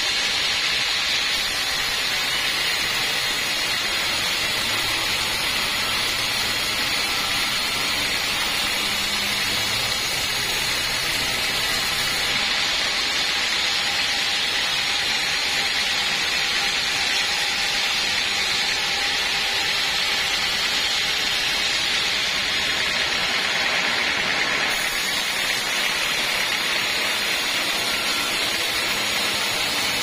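Vertical band sawmill running steadily, its blade ripping lengthwise through a teak slab: an even, unbroken saw noise.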